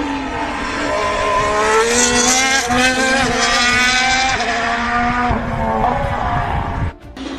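A 2024 Formula 1 car's 1.6-litre turbocharged V6 hybrid engine running on track. The pitch climbs as it revs up, then falls away steadily as it slows, and a second engine passage follows. The sound cuts out abruptly for a moment near the end.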